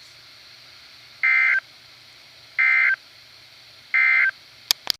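EAS end-of-message signal from a NOAA Weather Radio broadcast: three short, identical bursts of SAME digital data tones, evenly spaced about 1.4 seconds apart, marking the end of an alert message. Two sharp clicks follow near the end as the audio cuts off.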